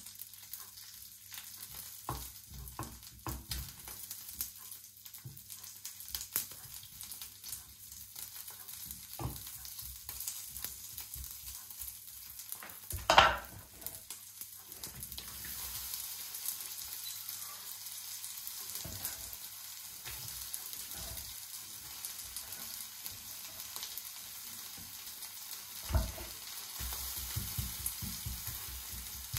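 Food sizzling in a frying pan, with scattered clicks and scrapes of a utensil being worked in the pan. A louder clatter comes about halfway through, after which the sizzle is a little louder, and a sharp knock comes near the end.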